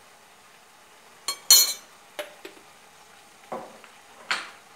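A spoon knocking and scraping against a stainless steel pot while vegetables are stirred in it: a few separate knocks, the loudest about a second and a half in.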